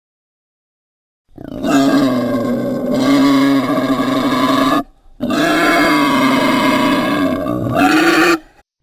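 Two long, deep roars from a monster sound effect, each about three seconds, with a short break between them.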